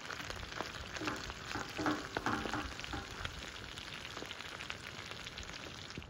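Chicken pieces and freshly added chopped onion sizzling in melted butter in a frying pan, with a steady crackle. A wooden spatula stirs and scrapes through them, most audibly between about one and three seconds in.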